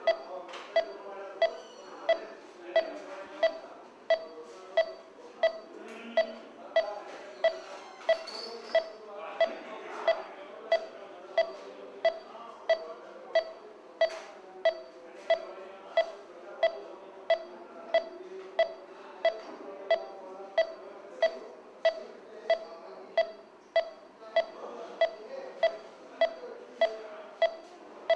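Patient monitor's pulse beep sounding with each heartbeat: a short, steady high beep repeating evenly about three times every two seconds, over faint background noise.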